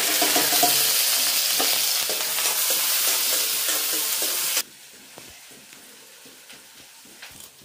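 Chopped onions sizzling loudly as they are tipped into a hot kadai and stirred with a spatula. The sizzle cuts off suddenly a little past halfway, leaving a quiet background with a few faint ticks.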